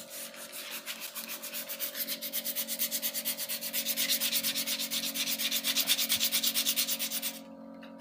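Sandpaper rubbed by hand in rapid back-and-forth strokes over a varnished wooden stair rail. It grows louder partway through, then stops shortly before the end.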